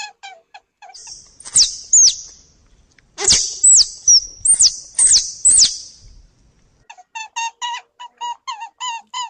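A run of about six sharp high chirps, each a quick falling whistle, between about one and six seconds in. A repeating tune of short squeaky notes plays at the start and comes back near the end.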